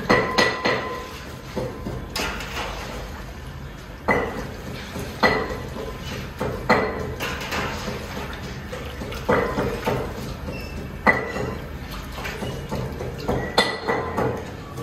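A perforated metal skimmer scooping soaked rice out of starchy water in a large aluminium pot, knocking and scraping against the pot with irregular ringing clanks about every one to two seconds, with water sloshing.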